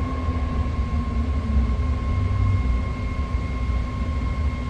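BART train running, heard from inside the car: a heavy low rumble with a steady high-pitched whine.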